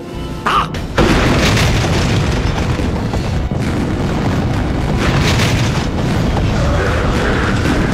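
Explosions in a film battle scene: a sudden loud blast about a second in, then a continuous rumbling din of further blasts.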